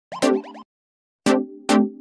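Intro music made of short notes that each start sharply and fade quickly: a quick run of notes, a brief silence about half a second in, then more notes.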